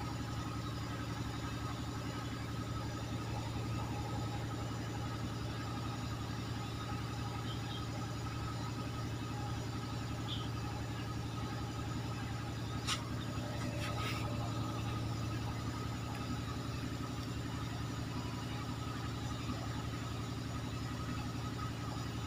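A motor running steadily with a low, unchanging hum. Two faint clicks come about a second apart midway through.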